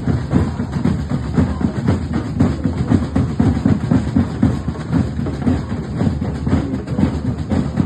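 Drums beating a fast, steady rhythm.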